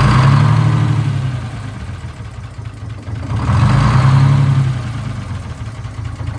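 Detroit Diesel 6-71 inline-six two-stroke diesel running just after start-up, its speed rising and falling about every three and a half seconds. This is the horrible hunt that the owner puts down to a governor gummed up with stop-leak and coolant sludge.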